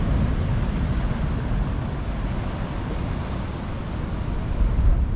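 Wind buffeting the microphone as a steady low rumble, over the hiss and wash of waves breaking on shoreline boulders.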